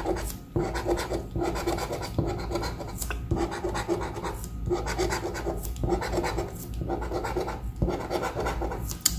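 Scratch-off lottery ticket being scratched with a hand-held scraper tool, rubbing off the coating over the number panels: a run of scraping strokes with brief pauses about once a second.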